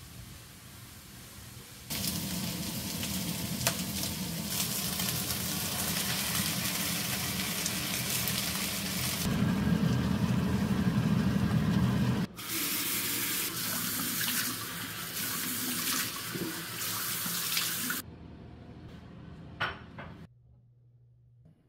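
Water running steadily, as from a tap, in two stretches split by a brief break about 12 seconds in; it stops a few seconds before the end, followed by a couple of small clicks.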